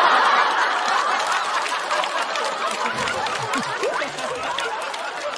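Studio audience laughing at a punchline, with scattered clapping; loudest at the start and slowly dying down.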